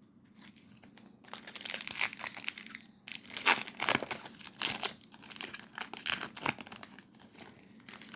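A foil trading-card pack wrapper being torn open and crinkled in the hands, crackling in two stretches with a brief pause between them.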